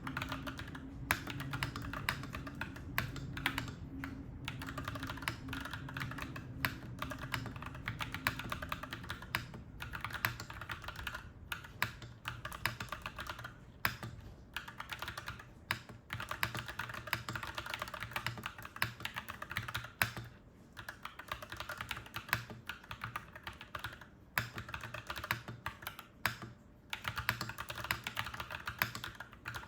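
Clacky mechanical keyboard being typed on steadily: a dense, irregular run of keystrokes with short pauses between bursts.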